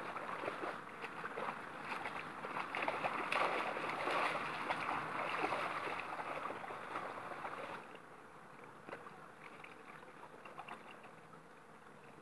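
Water splashing and rippling in a shallow river as a dog wades through it and grabs a stick. The splashing is dense for about the first eight seconds, then dies down to a quieter ripple.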